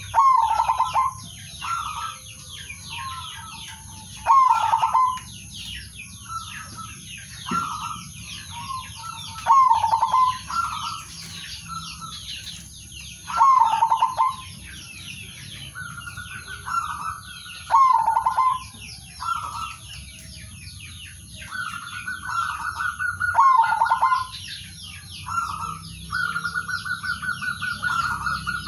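Male zebra dove (perkutut) singing: rapid rippling coo phrases repeated every few seconds, some drawn out into longer, slightly higher trills. Continuous high-pitched twittering runs underneath.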